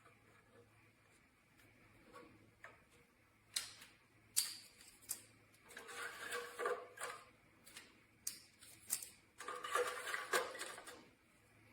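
Handling noises: a scattering of sharp clicks and knocks, with two stretches of denser scraping and rustling, over a faint steady low hum.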